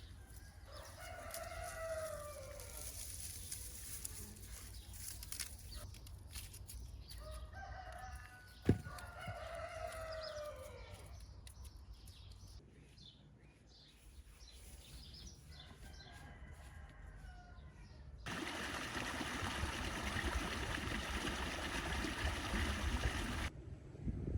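A rooster crowing three times, each crow rising and then falling away, the third one fainter, with a single sharp click during the second crow. Near the end comes a steady rushing noise for about five seconds that stops abruptly.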